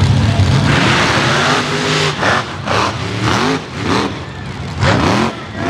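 Mega truck engines at full throttle launching off the line with a surge of noise about a second in, then revving in quick repeated rising surges, more than one a second, as the trucks bound over the bumpy dirt course.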